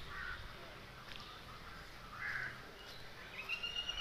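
Crows cawing: two short, hoarse caws about two seconds apart. About three seconds in, a steady high-pitched tone begins and holds.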